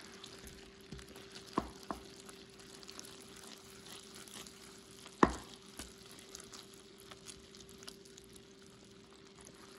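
Hot sugar candy syrup bubbling and sizzling faintly in a stainless steel pot as a silicone spatula stirs it, with a few light clicks and one sharper knock about five seconds in. A faint steady hum runs underneath.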